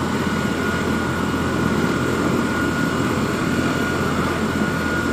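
Steady, unbroken drone of running engine machinery, with a thin high whine held over it.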